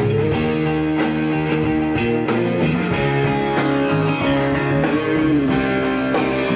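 Rock music led by guitar, with held notes that slide in pitch.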